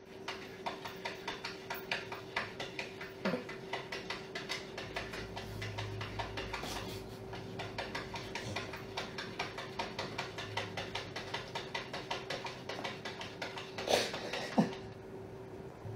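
A cat's paw tapping rapidly and repeatedly on a glass door pane, about four taps a second, over a faint steady hum, with two louder sounds near the end.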